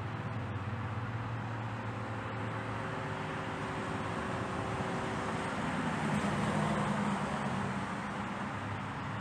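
Motor vehicle engine hum and road noise, with a steady low drone that swells to a peak about seven seconds in as a vehicle passes, then eases off.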